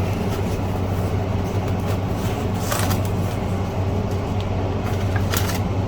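Steady low background hum, with two brief rustles of something being handled, a little under three seconds in and near the end.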